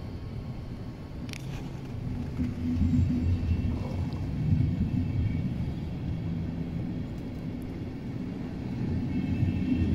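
Passenger train coaches rolling slowly past on the rails behind an electric locomotive, a steady low rumble of wheels and bogies, with one sharp click about a second in.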